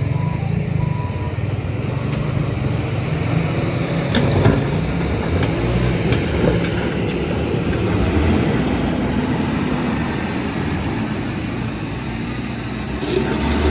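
Diesel engine of heavy earthmoving machinery working steadily under load, with a reversing alarm beeping a couple of times in the first second and a few knocks near the middle.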